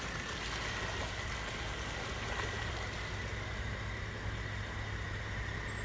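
A car engine idling steadily, a low, even hum with no revving.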